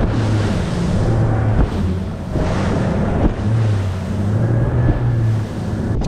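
Bass boat's outboard motor running at speed across choppy water: a steady low hum under heavy wind noise on the microphone and the rush of spray off the hull, with a few knocks as the hull hits waves.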